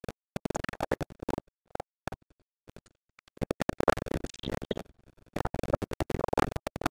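Packaging being handled, rustling and crackling in three bursts of dense crackle.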